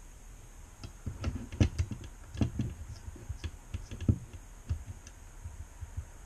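A run of irregular light clicks and knocks from hands handling tools and parts on a workbench, the loudest about one and a half seconds in, thinning out after about five seconds.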